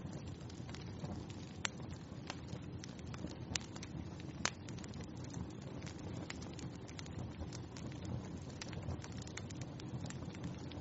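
Wood fire in a fireplace crackling: a steady low rush of flame under many scattered sharp pops, the loudest about two, three and a half and four and a half seconds in.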